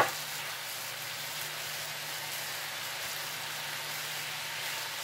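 Chicken pieces sizzling steadily as they sauté in margarine in a skillet, with one sharp knock at the very start.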